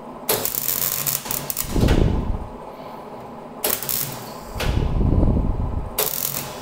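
MIG welder tack-welding on a car's steel exhaust silencer: three bursts of arc hiss, the first about a second and a half long, the second shorter, the third starting near the end. A loud low rumble fills the gap between the second and third bursts.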